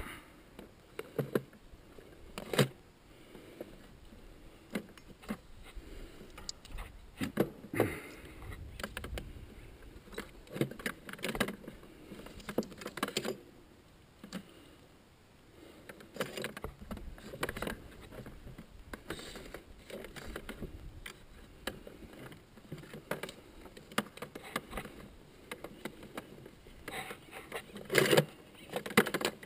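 Tools, metal clips and an electrical cord being handled in and around a plastic bucket: irregular clinks, clicks and rattles with short quiet gaps, and a burst of louder knocks near the end.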